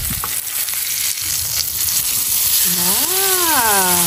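Steak and garlic frying in butter in a nonstick pan, a steady sizzle as the steak is turned over with metal tongs. In the last second and a half a voice makes one drawn-out sound that rises and then falls.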